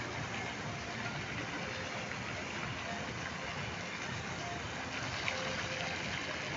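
Fountain water jets splashing into the basin: a steady rush of falling water.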